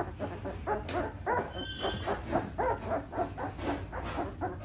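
A litter of two-week-old pit bull puppies whimpering and squeaking: many short, high cries one after another.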